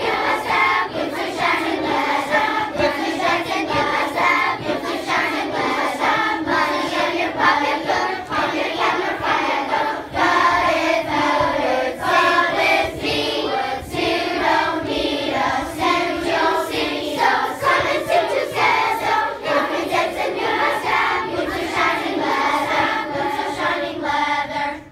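Children's choir singing together in unison, the many young voices continuing throughout and stopping right at the end.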